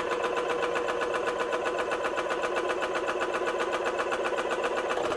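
AEA 480-bar (7,000 PSI) oil-free PCP air compressor running, a steady fast even chatter with a constant hum, pumping an airgun air cartridge up toward 5,000 PSI.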